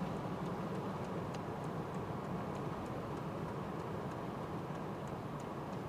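Steady rumble of a vehicle in motion, heard from inside, with faint scattered ticks over it.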